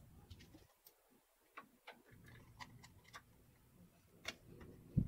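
Faint, scattered clicks and light taps from handling a small SSD and its SATA-to-USB connector while it is hooked up to a laptop, with a louder knock near the end.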